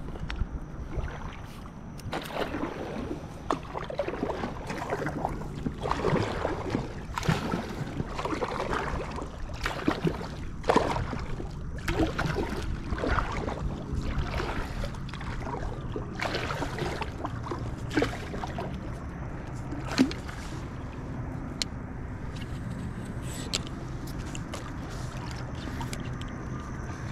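A paddle dipping and pulling through lake water from a small paddled fishing boat, splashing about once a second with an occasional knock, over a low steady rumble. The strokes thin out near the end.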